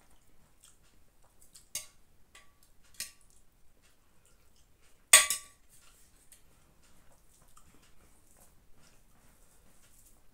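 Metal ladle clinking against a stainless-steel pot three times, each with a short metallic ring; the third clink, about five seconds in, is much the loudest.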